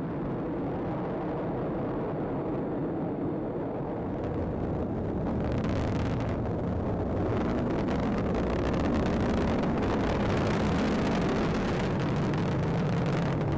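Atlas V rocket engines during ascent: a steady, noisy rumble that takes on a harsher crackle about seven seconds in.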